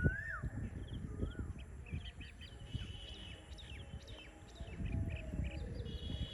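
Several birds calling: a whistled note that rises and falls right at the start, then many short chirps scattered throughout. A low, uneven rumble runs underneath.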